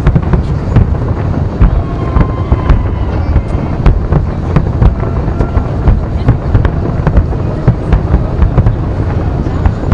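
Fireworks display: a rapid, continuous barrage of bangs and crackles over a heavy low rumble, with a few short whistles among them.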